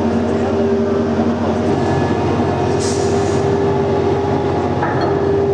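Steady machinery drone with a constant pitched hum, and a brief hiss about three seconds in.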